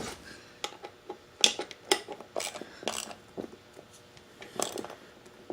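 Irregular metallic clinks and clicks of hand tools and hardware working on an ATV wheel, a few sharp strikes spaced unevenly.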